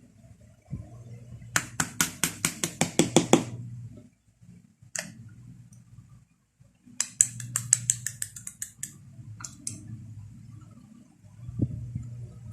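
Small hard parts of an airsoft pistol being handled during disassembly: two quick runs of sharp clicks and clinks, a few single clicks, and a dull knock near the end.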